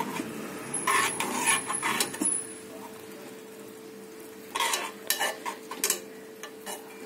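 Metal spoons scraping and clinking against a metal pan while grated carrot is stirred in ghee and milk for carrot halwa. The strokes come in two bursts, one about a second in and another about four and a half seconds in.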